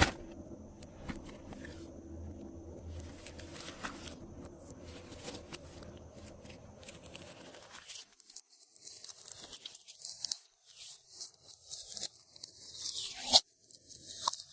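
Glossy slime being worked, giving sticky crackling and popping. About halfway through it breaks into a series of separate short crackles with gaps between them.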